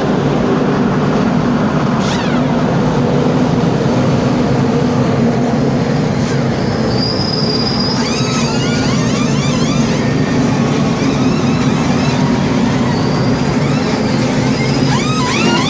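Stock car engines running loudly on pit road. From about eight seconds in comes a quick run of rising-and-falling whines from pneumatic impact wrenches spinning lug nuts off and on during a tyre change, and another run comes near the end.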